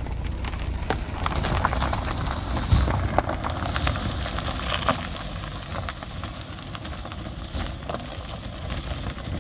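A car driving away over a stony dirt track: tyres crunching and crackling on gravel over the running engine, the sound slowly fading in the second half as the car pulls away.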